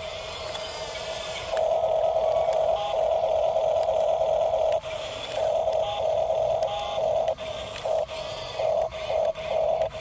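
A toy RC bulldozer's electric drive motors and gearboxes whining in bursts as the throttle is worked: one long run of about three seconds, then a string of shorter and choppier bursts toward the end.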